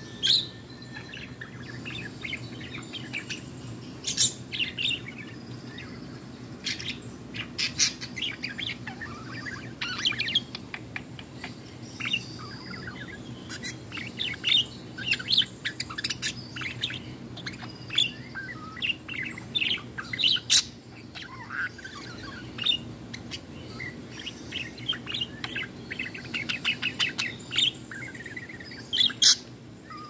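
A female budgerigar warbling: a long, uneven stream of quick chirps, clicks and squeaky whistled notes, with louder bursts now and then.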